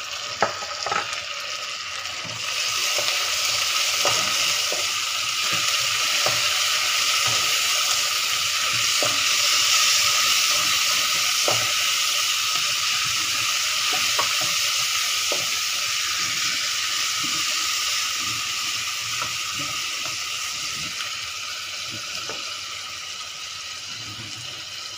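A pounded paste of ginger, garlic and chili with sliced onions and curry leaves sizzling in hot oil in a stone-coated wok, swelling a couple of seconds in and easing off toward the end. A spatula clicks and scrapes against the pan now and then as it is stirred.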